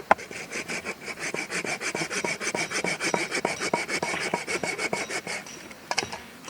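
A small hand saw cutting wood in quick, even back-and-forth strokes, about six or seven a second, with the blade ringing faintly; it starts just after a sharp knock and stops about five and a half seconds in.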